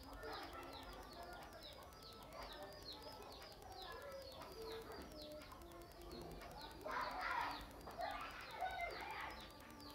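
Birds calling: many short, high, falling chirps repeated several times a second, mixed with lower call notes. The calls get louder briefly about seven seconds in.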